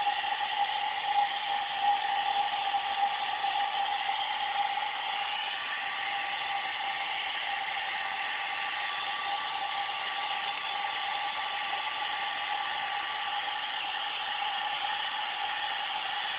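Hair dryer running with a steady whine, drying a dog's coat; its level wavers for the first few seconds, then holds steady.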